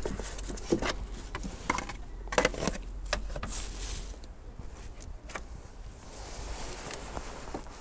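Gloved hands handling plastic engine-bay parts and wiring: a few light clicks and knocks in the first three seconds, a short hiss around the middle, then only a faint steady background.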